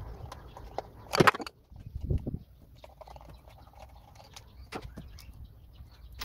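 Plastic clicks and knocks from a screwdriver and hands working the connector of a Mercedes ignition coil pack, with one loud sharp clatter about a second in and a duller knock a second later.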